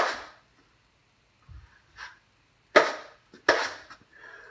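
Drywall taping knife scraped and knocked against the edge of a mud pan in short, sharp strokes: a click at the start, a light one about two seconds in, then two loud scrapes under a second apart near the end.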